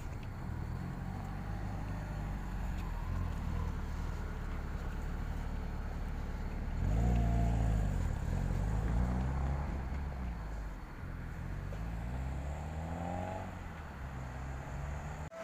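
Road traffic: car engines running and passing close by, loudest about seven seconds in, with another engine rising in pitch as it accelerates near the end.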